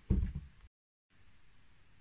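A low, soft thump as a cat jumps down from a banister post and lands on a box on the carpeted floor.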